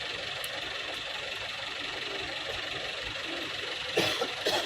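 A vehicle engine idling steadily, with two short, louder bursts near the end.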